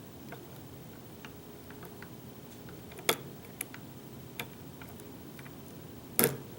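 Light, scattered clicks of a lock pick working the pins of a custom challenge lock, Pickaholic's 'Hull Breach', while the pins are being set again after a lost false set. A sharper click comes about three seconds in and the loudest, a quick double click, near the end.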